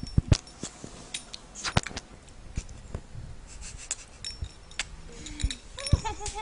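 Sharp kissing smacks of a woman's lips on a pet marmoset, scattered at irregular intervals, about one or two a second.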